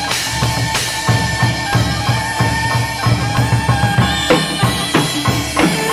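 Chầu văn ritual music, instrumental only: fast, dense drumming, several strokes a second, with sharp percussive strikes over a few held instrumental notes.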